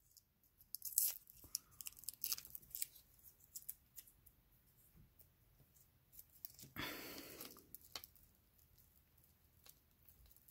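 Costume jewelry handled by hand, plastic beads and chain clicking faintly as they are sorted and untangled, with a brief rustle about seven seconds in.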